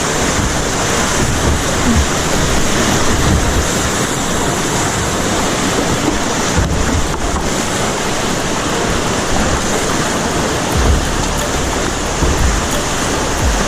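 Small waterfall, its water rushing loudly and steadily, with uneven low rumbling underneath.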